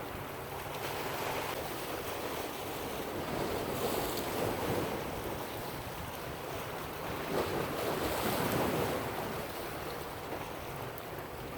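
Ocean surf washing in and breaking, swelling louder twice, with wind buffeting the microphone.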